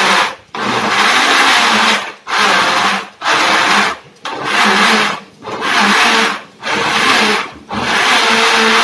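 Small single-serve bottle blender run in short pulses: about seven bursts of roughly a second each, its motor whirring and chopping, with brief stops between presses.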